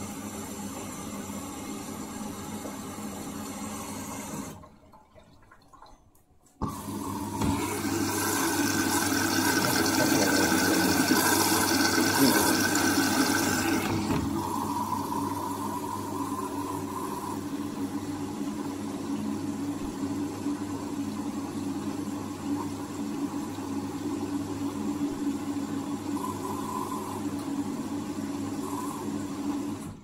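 Candy front-loading washing machine at the start of a wash program: a steady hum that stops about four seconds in, then, after a short pause, water rushing in loudly through the inlet valve and detergent drawer for about seven seconds, settling into a softer steady flow and hum.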